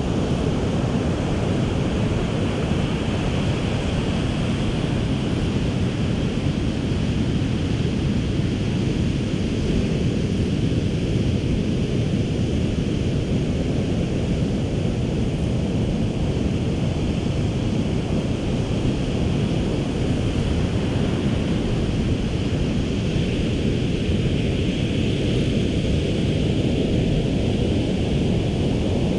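Ocean surf washing steadily on a sandy beach, mixed with wind rumbling on the microphone; a continuous, even noise with no breaks.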